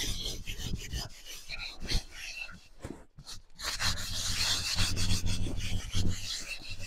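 Hands rubbing sand over the outside of a soot-blackened metal cooking pot, a gritty scraping scrub that scours off the black, with a short break about halfway.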